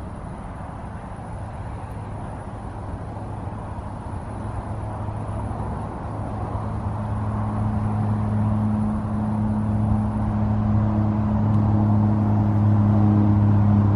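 Motor vehicle engine humming at one steady low pitch and growing gradually louder, as it draws nearer, over a rushing background noise.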